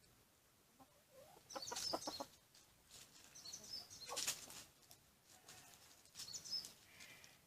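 Birds calling in three short bursts of high chirps, spaced about two seconds apart, with some lower clucking among them.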